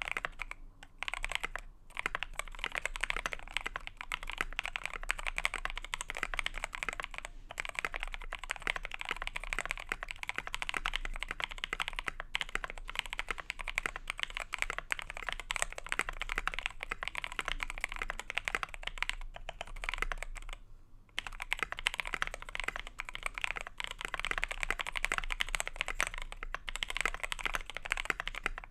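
Fast, continuous typing on a KBD67 Lite mechanical keyboard with a brass plate, Creamaron linear switches (NK Cream stems in Gateron Ink Black housings, 65 g springs) and KAT Dice keycaps. The switches still have a bit of scratch, in the typist's own account. The clicks run densely with brief pauses and a longer gap of about a second near the two-thirds mark.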